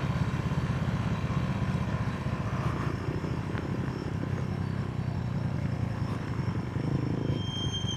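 Motorcycle engine running at low revs with a fast, even pulse as the bike rolls down a mountain road.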